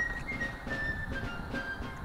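Background music: a high melody of held notes that mostly steps downward, over a soft low accompaniment.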